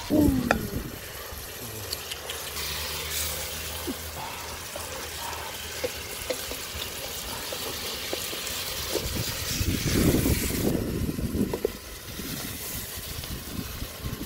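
Wooden spoon ladling cooked fish and green peppers out of a pot of broth, the liquid sloshing and dripping, with a few sharp clicks of spoon against pot and metal plate. The sloshing is loudest about ten seconds in.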